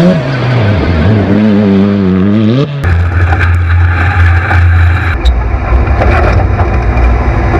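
Off-road race car engine running hard. Its pitch dips and climbs back up over the first three seconds. It then changes abruptly to a steady low engine drone mixed with wind and rattling, which shifts again about five seconds in.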